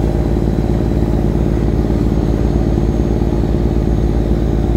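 A fishing boat's engine running steadily under way, a continuous low drone with a fast, even throb.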